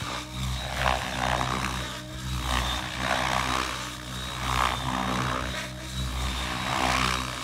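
MiniatureAircraft Whiplash 730e electric RC helicopter with Rapid 710 main blades in flight: a steady motor and rotor hum with blade whoosh that swells and fades repeatedly as it manoeuvres.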